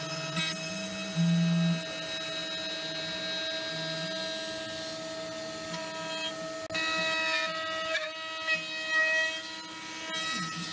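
Small CNC milling machine carving wood with an end mill: the spindle runs with a steady whine while the lower stepper-motor tones jump between pitches as the axes move along the toolpath.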